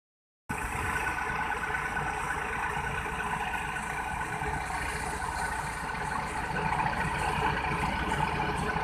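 Heavy farm machinery engine running steadily, with a fine, even low rhythm, getting a little louder over the last two seconds or so.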